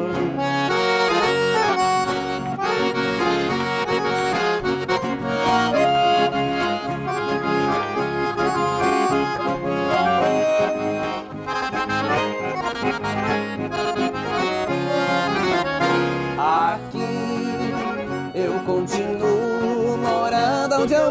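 Accordion playing the melody in an instrumental break of a Brazilian country (sertanejo) song, with guitar accompaniment and no singing.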